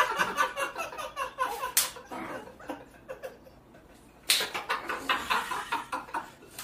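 Several men laughing hard in bursts, with a sharp smack about two seconds in.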